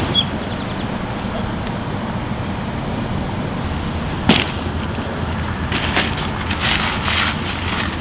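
Footsteps crunching on loose beach pebbles in the second half, after a single sharp knock about halfway through, over a steady low background rumble.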